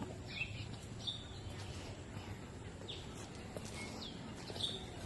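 Birds chirping: a handful of short, high calls scattered over a few seconds, over a steady low background rumble.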